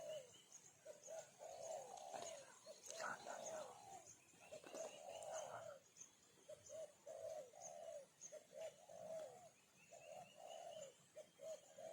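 A dove cooing: a quick, uneven string of short, low coos that goes on without a break, faint, with a thin steady high-pitched hum behind it.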